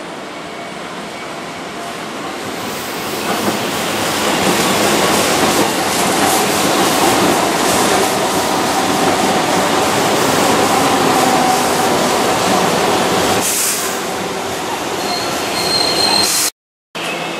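Keihan 2600-series electric commuter train running past close by on curved track through points: wheel and track noise rises to a loud, steady level as the cars go by, with a thin steady wheel squeal. A higher squeal follows as the last cars pass, then the sound breaks off suddenly near the end.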